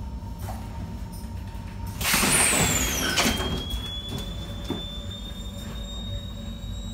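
Stadtbahn car's passenger door opening at a stop: a loud hiss with a falling whine for about a second, ending in a knock as the door reaches its stop, then a thin steady high tone over the car's low running hum.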